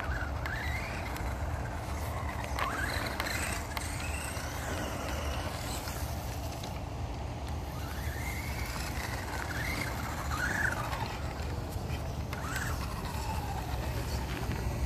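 Losi desert truck RC car's electric motor whining, its pitch rising and falling again and again as it speeds up and slows on dirt and grass, over a steady low rumble.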